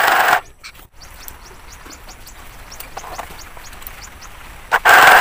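Mini sewing machine running in a loud, even stitching burst that stops just after the start and starts again near the end. In the pause between, birds chirp faintly in the background.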